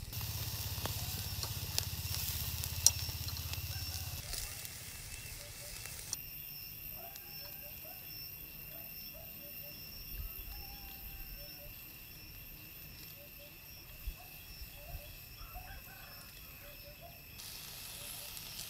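Pork, okra and green chili skewers sizzling on a wire grill over a charcoal burner, with crackling and a few sharp clicks; louder for the first four seconds, then quieter.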